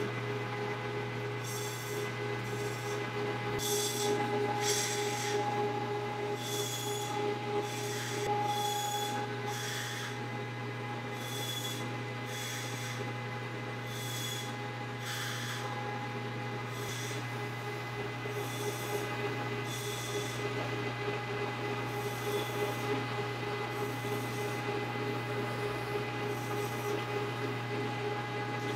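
Metal lathe running with a steady hum, spinning a pool cue's ferrule and tip, with a series of short scraping strokes about once a second as the spinning tip and ferrule are worked.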